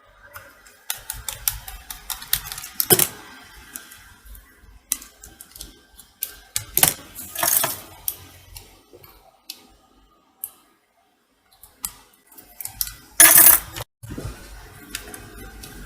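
Irregular clicks, taps and clatter of small hard parts and tools being handled on a workbench, broken by three brief rushing noises about 3, 7.5 and 13 seconds in; the last is the loudest.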